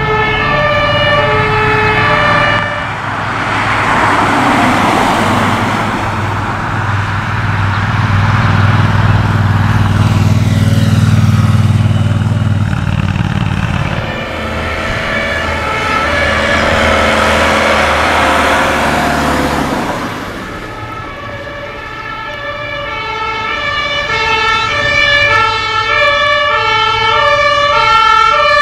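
German two-tone emergency siren (Martinshorn) sounding as a police van passes at the start, then vehicles driving past with engine and tyre noise. Near the end a fire truck's two-tone siren comes in, alternating steadily between its two notes and growing louder as it approaches.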